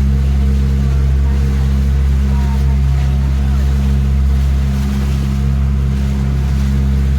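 Motorboat engine running at a steady, unchanging drone.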